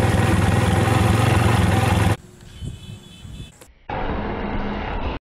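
Motorcycle engine running steadily, cut off abruptly about two seconds in. After a quiet stretch, a loud harsh scream starts about four seconds in.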